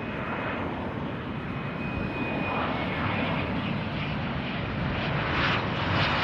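Business jet engines running as a jet passes close by on the runway, a steady rush that slowly grows louder, with a faint thin whine in the first few seconds.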